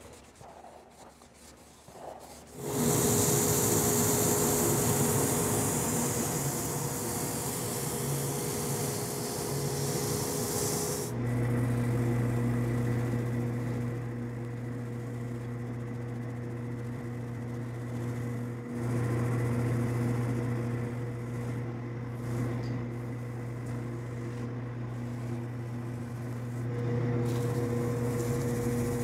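General wood lathe running, with a hand-held pad rubbing against the spinning turned wooden vase during finishing. The rubbing starts loud and hissing a couple of seconds in. From about a third of the way through, the lathe's steady low hum is more prominent and the rubbing lighter.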